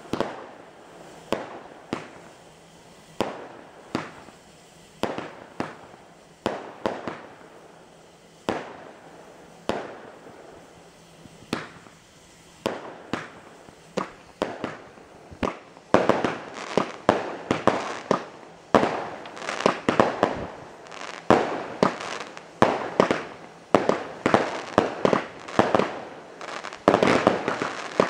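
Aerial fireworks bursting: single bangs about a second apart at first, then from about halfway through a rapid barrage of many bursts close together.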